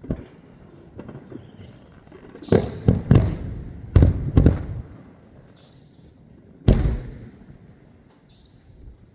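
Fireworks shells bursting: a light bang at the start, a quick run of five loud booms in the middle, then one more loud boom, each trailing off in a rumbling echo.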